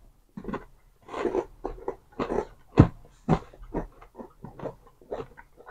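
Irregular crisp crunching of a wafer chocolate bar, about two to three crackles a second, with one sharper knock a little under three seconds in.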